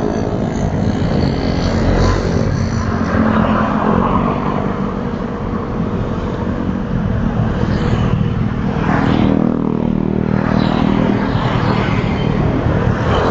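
Motorcycle engine running steadily while riding in traffic, with other vehicles rushing past twice in the second half.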